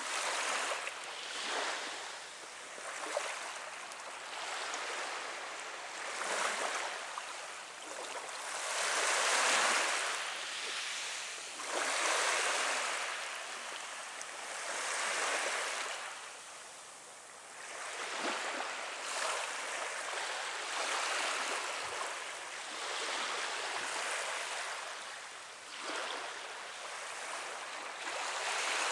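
Small waves washing onto a sandy beach, each wash swelling and fading every two to three seconds.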